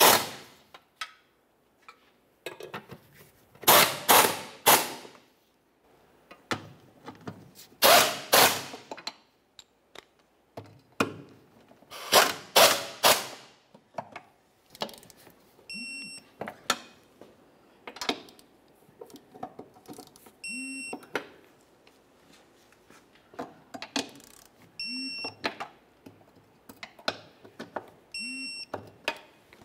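Hand ratchet clicking in short runs as the transmission crossmember bolts are run down tight. In the second half, a click-type torque wrench breaks over four times, about every four to five seconds: a sharp click with a brief metallic ring, each one a crossmember bolt reaching its 21 Nm torque setting.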